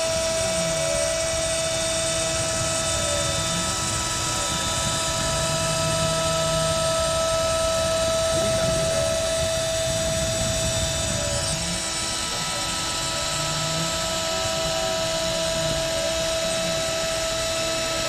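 Homemade CNC router milling a circular groove into a plate: the spindle runs with a steady high whine over the cutting noise, while the axis motors repeatedly rise and fall in pitch as the cutter follows the curve.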